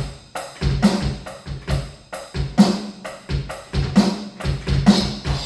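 Electronic drum kit played in a steady beat of kick, snare and cymbals, using a user kit preset with each pad set to sound like an acoustic drum set. The playing stops near the end.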